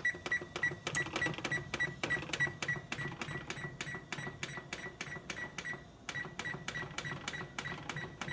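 Oven timer being set: a rapid, even run of button clicks, each with a short high beep, about four a second, as the time is stepped up.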